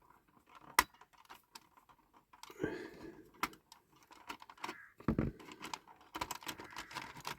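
Scattered small clicks and taps of plastic and metal parts being handled and pried apart on a 1/18 scale diecast model car. There is a sharper click about a second in and a duller knock about five seconds in.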